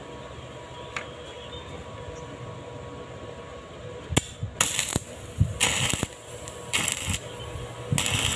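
Stick (arc) welder tack-welding a steel sprocket to its hub: a sharp click about halfway in, then about five short bursts of arc crackle, each roughly half a second long, over a faint steady hum.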